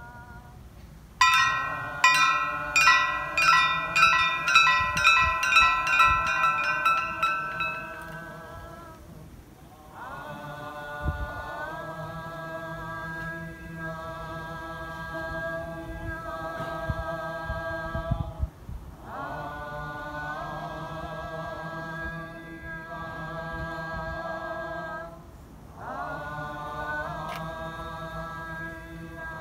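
A Buddhist temple bell struck about a dozen times, the strokes coming quicker and quicker as they ring out. From about ten seconds in, a group of voices chants in unison in long held lines, pausing twice for breath.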